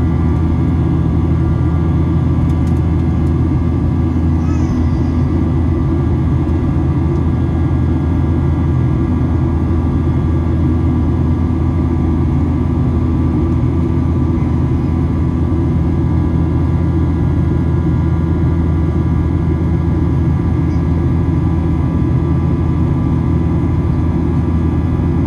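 Steady cabin noise inside a Boeing 737-800 in flight: a loud, even rumble from its CFM56-7B engines and the airflow, with a few steady whining tones above it.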